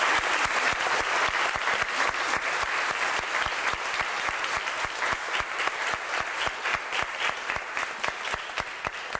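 Audience applauding, the dense clapping gradually thinning out and fading toward the end until only a few separate claps remain.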